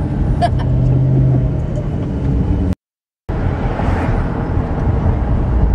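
Car running, heard from inside the cabin: a steady low rumble of engine and road noise. It cuts out completely for about half a second near the middle.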